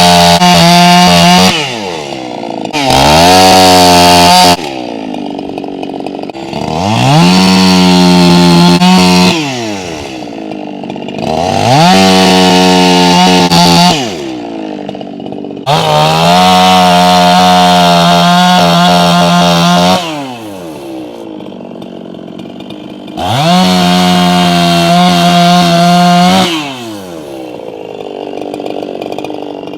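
Echo two-stroke chainsaw cutting logs. It rises to full throttle six times, each burst lasting from one to about four seconds, and drops back to idle between cuts.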